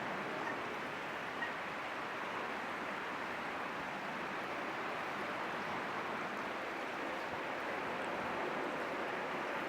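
Steady rush of flowing water, an even hiss with no let-up.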